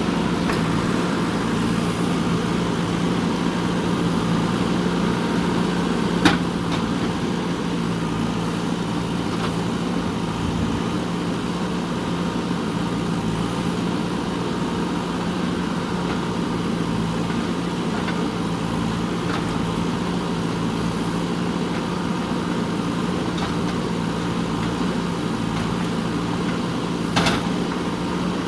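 JCB 3DX backhoe loader's diesel engine running steadily, with a sharp knock about six seconds in and another near the end.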